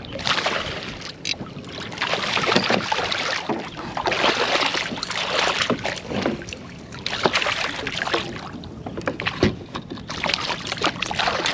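Water splashing in repeated bursts as a hooked striped bass thrashes at the surface beside a kayak.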